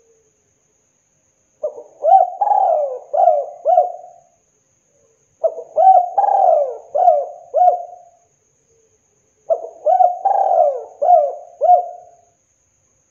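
Spotted dove cooing: three phrases about four seconds apart, each a quick run of about five coos.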